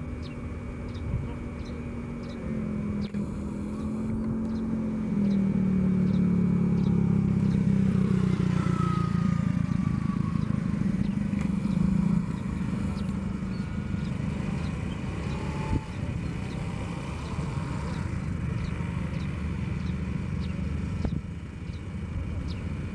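Electric high-speed inspection train running slowly under its own power from the overhead line. Its low rumble swells as it approaches and is loudest from about five to twelve seconds in, with a brief whine gliding down and back up in pitch around eight seconds in.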